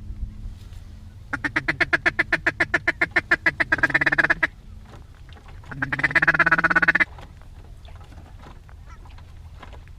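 Duck call blown by a hunter: a fast, even run of about eight short quacking notes a second that run together into a held note, then a second held quack about a second long that cuts off suddenly. The call is being used to bring circling ducks in.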